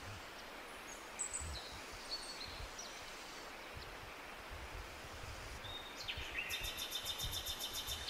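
Forest ambience: a steady hiss with irregular low rumbles, and a few short high bird chirps in the first couple of seconds. About six seconds in, a bird starts a fast, high repeated call of about five or six notes a second, the loudest sound here.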